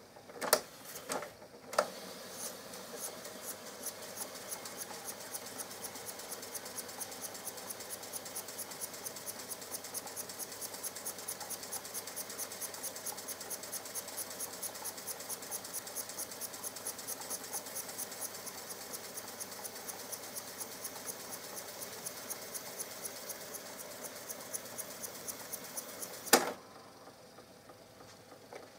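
Tesla B 101 reel-to-reel tape recorder fast-winding its tape. A few clicks as the transport keys are pressed are followed by a steady whirr of the spinning reels with an even ticking several times a second, ending in a click as the transport stops about 26 seconds in.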